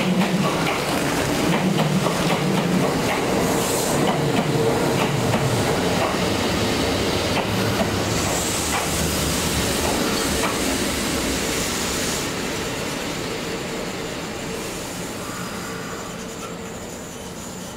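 Four-car Kintetsu electric train (1259 and 2410 series units coupled) rolling into the platform, its wheels clicking over rail joints, with a steady whine under the rolling noise as it brakes. The sound fades in the last few seconds as the train draws to a stop.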